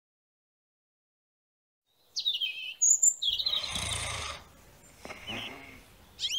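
Dead silence for about two seconds, then a cartoon-style sound effect of birds tweeting in quick, high, rising and falling chirps, the stock 'seeing birds' sound of someone dazed after a knock.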